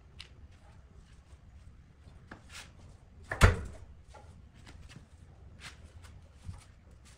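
A heavy thud about halfway through as one end of a charred log drops onto the lathe bed, with light scrapes and clicks of the burnt log being handled around it.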